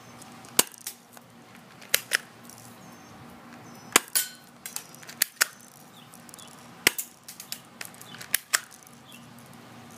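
Airsoft pistol firing single shots: about ten sharp cracks at irregular intervals of a second or two.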